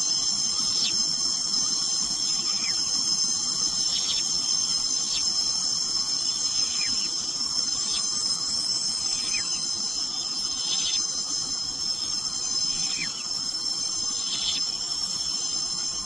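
Steady jungle insect chorus: several high, shrill trills held without a break. Short falling chirps repeat every one to two seconds over it.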